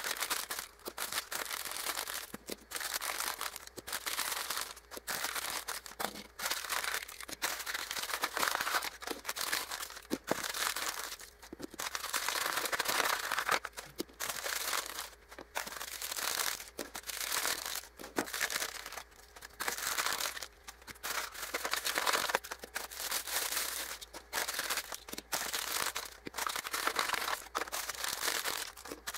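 Sheets of printed packing paper being crumpled and pulled off small diecast toy trains by hand, in irregular bursts of rustling and crinkling with short pauses between.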